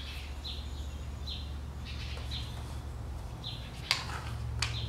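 A small bird chirping, a short high chirp about once a second, over a steady low hum. Two sharp clicks come near the end.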